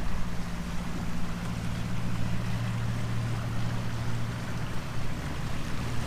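Small electric launch under way: a steady low motor hum with water rushing along the hull.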